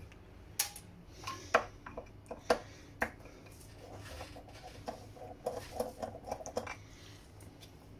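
Hands handling parts inside an opened radar scanner head, making small clicks and knocks: a few sharp taps in the first three seconds, then a run of quicker, lighter clicks from about four to nearly seven seconds in.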